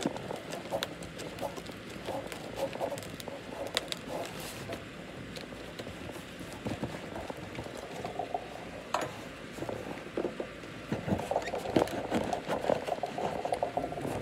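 A cardboard parcel and its packing paper being handled and unpacked by hand: irregular rustling and crinkling with scattered clicks and taps, busier in the last few seconds.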